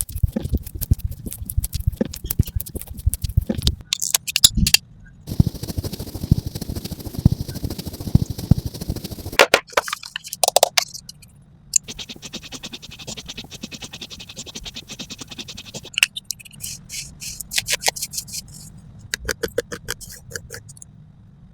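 Close-up ASMR makeup sounds: fast runs of crisp tapping and clicking, with a stretch of rough scraping about a third of the way in and a softer hissing, ticking passage in the middle.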